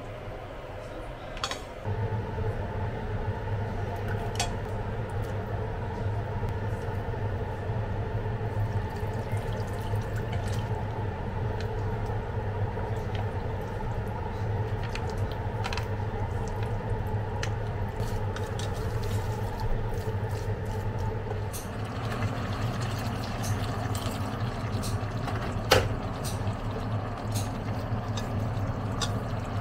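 Cooking sounds at a stainless steel pot: sake poured from a bottle over the ingredients, and chopsticks clicking and scraping against the pot as everything is mixed, with a sharp knock near the end. Under it a steady low hum starts about two seconds in.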